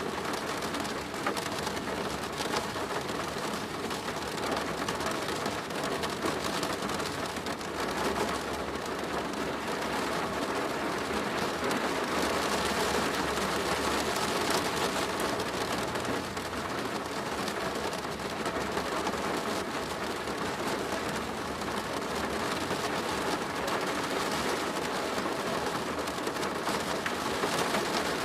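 Steady rain pattering on a plastic roof, a dense, even hiss of many small drop impacts.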